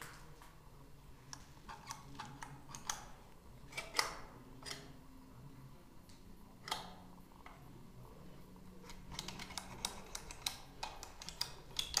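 Push buttons on an old wall-mounted control box being pressed by hand: scattered mechanical clicks, one sharper click about four seconds in and a quicker run of clicks near the end.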